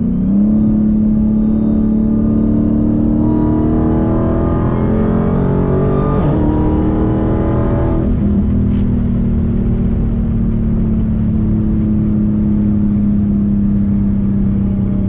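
Dodge Challenger Hellcat's supercharged V8 accelerating hard, its note climbing for about eight seconds, then falling away and holding a steady drone.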